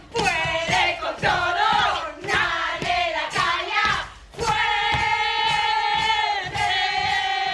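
Group of voices singing together in unison, with a long held note in the second half.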